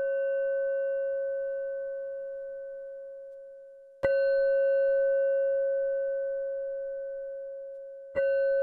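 Background music of a single bell-like tone, struck sharply and left ringing until it slowly fades. It is struck again about four seconds in and once more near the end.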